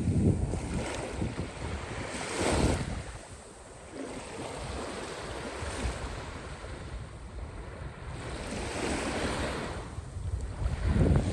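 Caspian Sea waves washing in, swelling and breaking at the start, again about two and a half seconds in, and once more near the end, with wind rumbling on the microphone.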